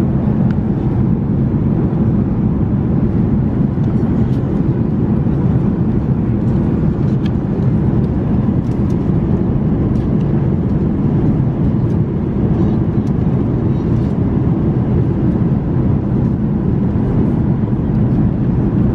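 Steady low rumble of airliner cabin noise inside an Airbus A380 in flight, from the engines and airflow, with a few faint clicks scattered through it.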